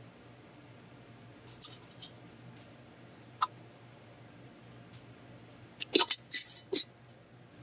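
Metal canning lids and screw bands clicking against glass jars a few times, then a quick run of scraping clicks about six seconds in as a screw band is twisted onto a glass jar of lard. A low steady hum sits underneath.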